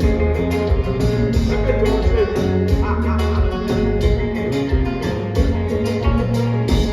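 A kompa band playing at a sound check: steady bass line, guitar and a regular drum beat.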